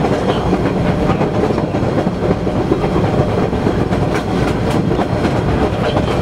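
Boston MBTA Red Line 01400-series subway car running at speed on open track, heard from inside the front cab: a steady rumble of wheels on rails with a few sharp clicks from rail joints.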